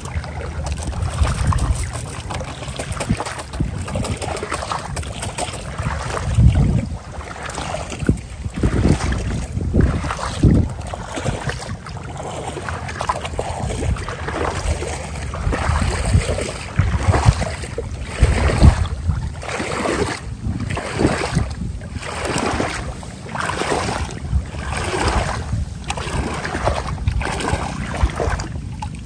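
Splashing and rustling in shallow water among rice plants as a small boat is worked through a flooded field, in strokes that settle to about one a second after the middle. Wind buffets the microphone throughout.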